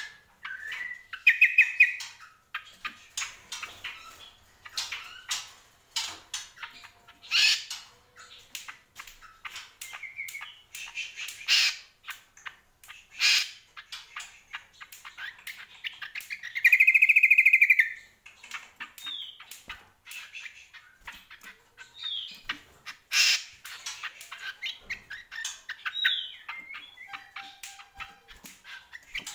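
Caged cucak kombo, a spiderhunter, calling in short chirps and squawks scattered among many sharp ticks, with one loud, long call about halfway through.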